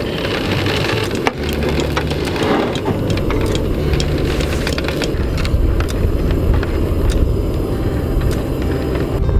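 Portable cassette gas stove burning under a foil pot of simmering udon: a steady low rumble with scattered light clicks and crackles.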